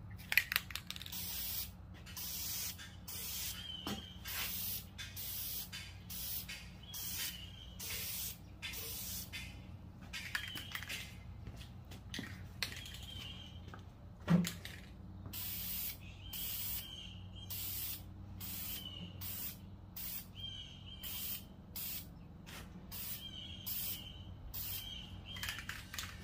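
Aerosol can of VHT FlameProof high-heat black paint spraying in many short bursts, a quick hiss one or two times a second. There is a single sharp knock about halfway through.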